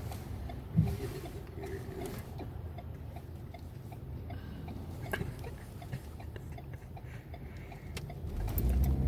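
One sharp, loud hiccup about a second in, over the low steady hum of a car's cabin. The car's rumble grows louder near the end.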